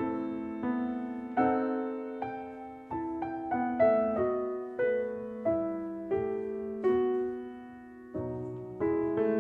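Background piano music: a slow, gentle melody of single notes struck one after another, each left to ring and fade.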